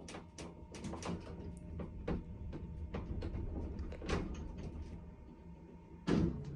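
A run of light, irregular clicks and knocks, then a louder thump about six seconds in.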